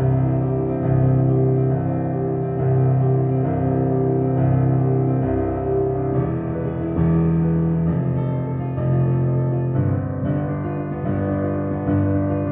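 Piano playing an arpeggiated right-hand pattern of quick repeated notes over held bass notes that change about every second, moving through a chord progression with the right hand climbing while the left hand descends.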